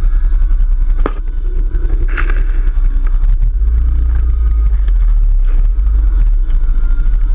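Off-road vehicle engine running during a ride, under heavy wind rumble on the microphone, with a sharp knock about a second in.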